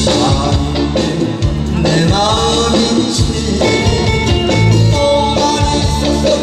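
Male vocalist singing a Korean popular song live into a microphone over instrumental accompaniment with a steady bass and beat; his held notes waver with vibrato.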